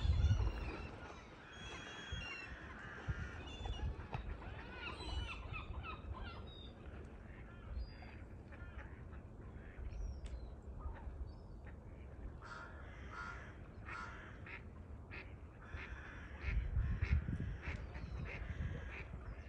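Birds calling: many short chirps in the first few seconds, then a run of short repeated duck-like calls in the second half, over a low rumble.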